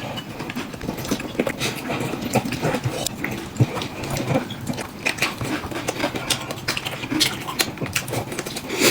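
Close-up eating sounds of someone wolfing down fatty red-braised pork belly: wet slurping, smacking and chewing in quick irregular clicks.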